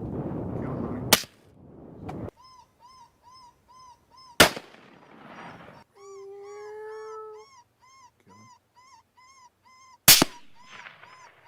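Three rifle shots, about 1, 4.5 and 10 seconds in, at coyotes. Between the shots a high chirping call repeats about twice a second, and a single long howl-like note sounds about halfway through.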